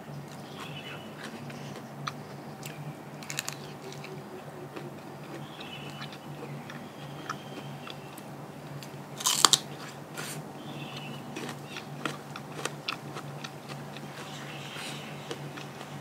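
A person chewing and biting into crunchy food, with scattered crisp crunches and one loud crunch about nine seconds in.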